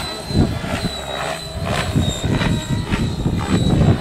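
Radio-controlled aerobatic helicopter in flight: a steady high whine with the rotor noise surging several times as it flips and tumbles through freestyle 3D manoeuvres.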